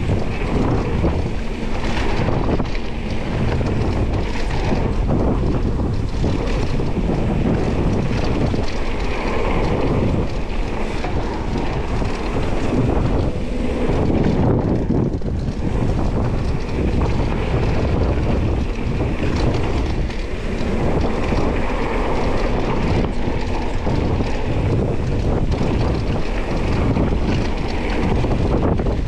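Wind buffeting the microphone over the steady rumble and rattle of a Specialized Status 160 mountain bike riding fast down a dirt trail, with constant small knocks from bumps in the ground.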